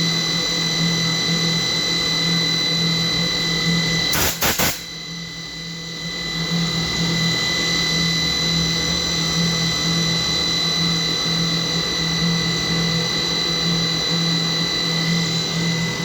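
CNC machining center running while milling a hexagon: a steady high whine over a low hum. About four seconds in there is a short, loud burst of rasping noise, followed by a couple of seconds of quieter running before the steady sound returns.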